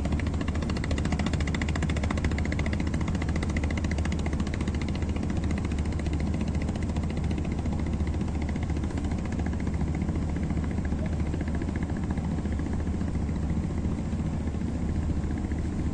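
Boat's diesel engine running steadily: a low drone with fast, even chugging and no change in speed.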